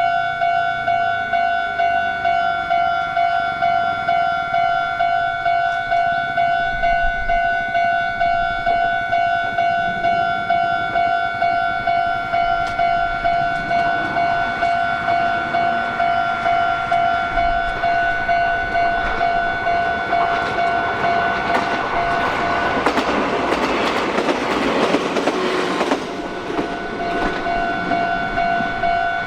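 Japanese level-crossing warning bell ringing steadily at about two strikes a second while a Meitetsu electric train passes. The train's noise builds from about halfway through, is loudest a few seconds before the end, then drops off suddenly while the bell keeps ringing.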